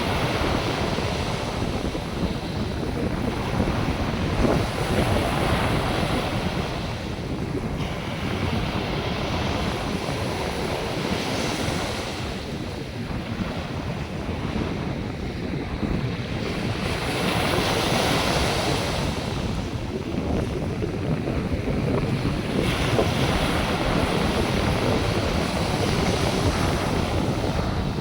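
North Sea surf: waves breaking and washing up the beach continuously, swelling in surges about every five or six seconds. Wind rumbles on the microphone underneath.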